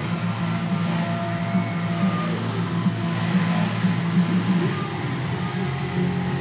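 Electric motor and propeller of a small indoor aerobatic RC plane buzzing, the pitch rising and falling as the throttle is worked through the manoeuvres.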